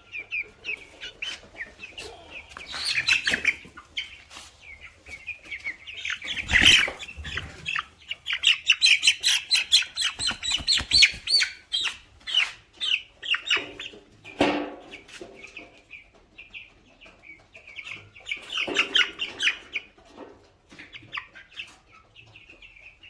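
18-day-old broiler chickens peeping again and again, with a fast run of loud cheeping between about 8 and 12 seconds in. A few louder noisy bursts stand out, the loudest about 7 seconds in.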